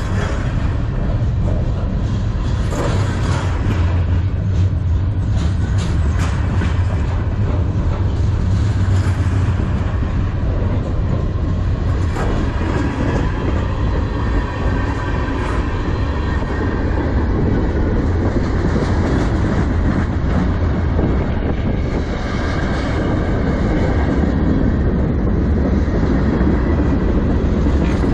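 Freight cars of a manifest train rolling past at close range: a steady heavy rumble of steel wheels on rail, with repeated clicks as the wheels cross rail joints.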